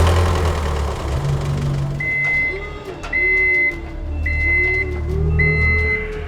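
Cartoon vehicle sound effects: a loud start, then a low engine hum, and from about two seconds in a steady high beep repeating about once a second, like a vehicle's reversing alarm.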